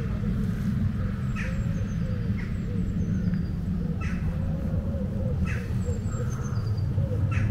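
Countryside walking ambience: footsteps about every second or so over a steady low rumble, with small birds chirping in short, high, falling notes and a lower bird call repeating throughout.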